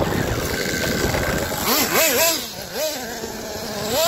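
Nitro engine of a Red Cat Earthquake 3.5 RC truck running hard as it is driven. Its pitch rises and falls several times in the second half as the throttle is worked.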